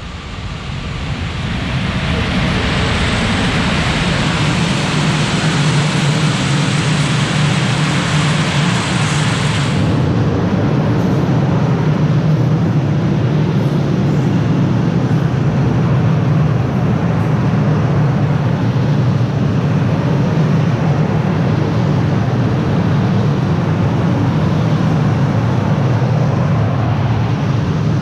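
Freight train passing close by, hauled by an electric locomotive. The loudness builds over the first couple of seconds, and a higher rushing noise stops abruptly about ten seconds in. After that, a long string of tank wagons rolls past with a steady low rumble of wheels on rail.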